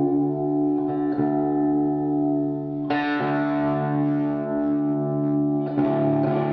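Electric guitar through distortion, tuned to drop D, playing notes and chords that are struck and left to ring, with fresh attacks about a second in, near the middle and near the end.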